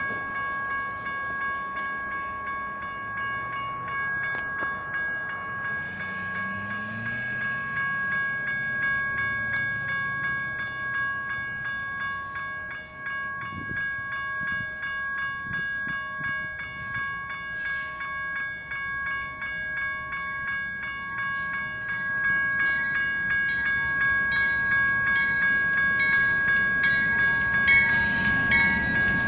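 Two General Signals Type 1 electromechanical railroad crossing bells ringing continuously with rapid, even strikes, meaning the crossing signals are activated for an approaching train. In the last few seconds the rumble of an arriving BNSF diesel freight locomotive builds under the bells.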